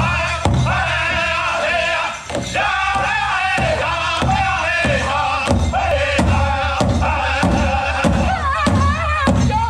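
Powwow drum group singing a chicken dance contest song: men's high-pitched, wavering voices over a big powwow drum struck about twice a second.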